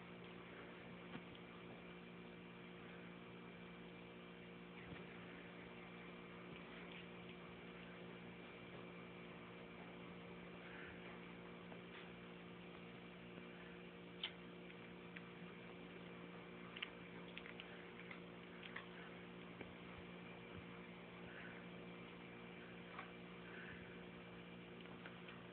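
Near silence: a steady low electrical hum with a few faint, scattered clicks.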